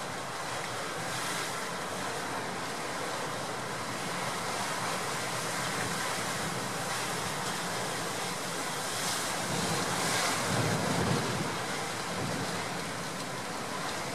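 Heavy storm surf breaking and rushing, mixed with strong gale wind buffeting the microphone. The roar swells louder, with a deeper rumble, about ten seconds in.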